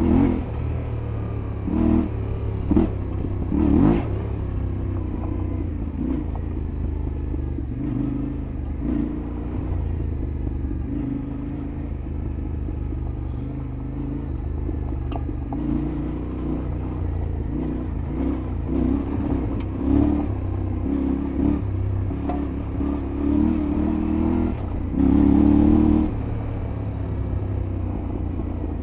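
Yamaha Ténéré 700 World Raid's parallel-twin engine being ridden, the throttle opening and closing in repeated bursts over a steady low drone, with a few sharp knocks. The longest, loudest burst of throttle comes near the end.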